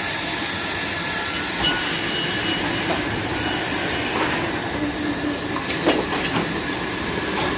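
Sawmill log carriage rolling on its rails through a running saw. A steady machinery noise with a few light knocks about two thirds of the way through.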